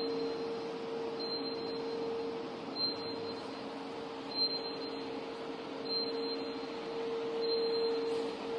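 Softgel encapsulation line machinery running: a steady hum with a faint high-pitched element repeating about every second and a half, like a regular machine cycle.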